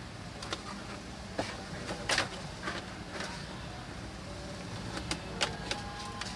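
Light plastic clicks and taps, about eight scattered over several seconds, as the laptop's plastic upper case is handled and lifted by hand, over a low steady hum.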